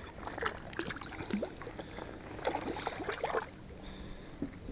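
Water splashing and gurgling beside a kayak as a small bass is reeled to the surface and lifted out, with scattered small clicks and drips.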